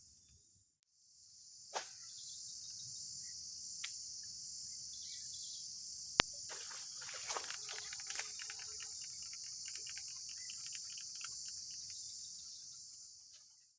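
Steady high-pitched chorus of insects, cutting out briefly about half a second in and then resuming. A few sharp clicks cut across it, the loudest about six seconds in, followed by a scatter of faint ticks.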